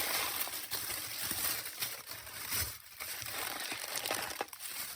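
Packaging crinkling and rustling as it is handled and opened, with scattered small clicks.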